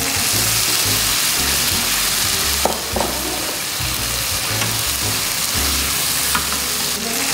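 Spicy stir-fried pork (jeyuk bokkeum) sizzling hard in a frying pan as water is poured in and a spatula stirs it, with a few knocks of the spatula against the pan. Background music with a low bass line plays underneath.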